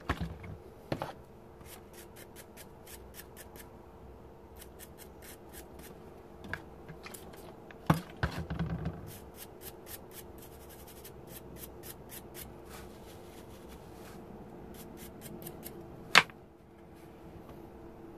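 Hand cleaning of freshly soldered circuit-board joints: runs of short scratchy strokes, with a few knocks of things handled on a wooden workbench, the loudest about sixteen seconds in. A faint steady hum runs underneath.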